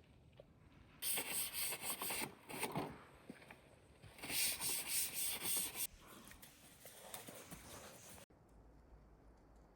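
Rapid, rough rubbing or scraping strokes in two loud bursts, about a second in and again near the middle, followed by weaker strokes that stop abruptly.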